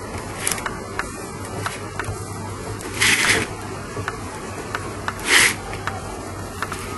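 Oil pastel scratching across coarse black sandpaper in a few short strokes, the loudest about three seconds in and another just after five seconds, with small ticks between.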